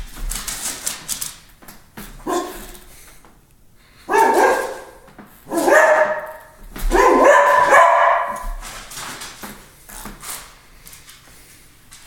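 Cocker spaniel barking several times, drawn-out barks that are loudest between about four and eight seconds in.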